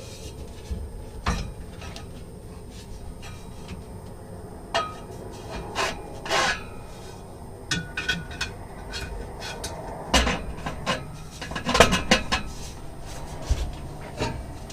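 Irregular metal clanks and scrapes of steel exhaust pipe and clamp parts being handled and fitted together, some knocks ringing briefly, the loudest cluster near the end.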